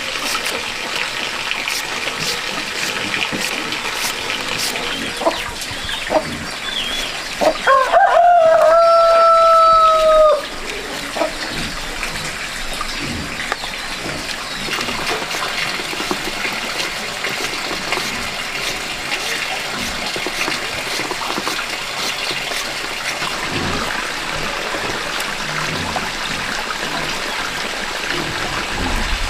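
A rooster crows once, about eight seconds in, in a long held call that drops away at the end. Running water makes a steady background.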